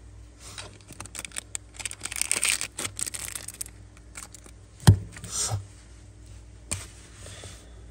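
Metal Zippo lighter being handled: a run of small clicks and metallic scraping, then a sharp click about five seconds in and another near seven.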